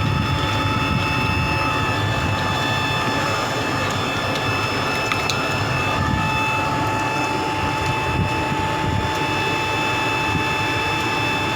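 Steady mechanical drone of a running motor, with a constant high whine over a low rumble.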